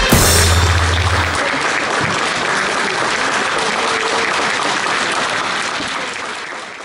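Audience applauding steadily, fading out near the end. A rock music track under it stops about a second in.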